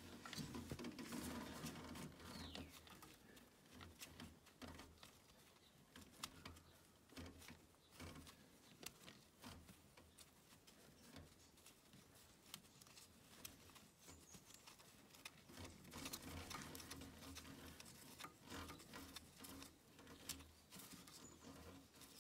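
Faint, scattered small clicks and rubbing from gloved hands fitting a plug by hand into the tractor's transmission housing.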